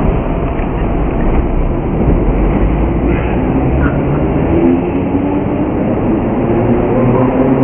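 Vintage New York subway train from the 1930s rolling past the platform, a loud steady rumble with a few steady whining tones joining about halfway.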